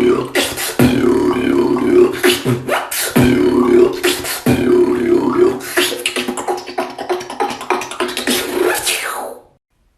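A beatboxer performing a fast, dense beatbox routine: sharp kick- and snare-like mouth hits over a hummed bass tone, cutting off suddenly near the end.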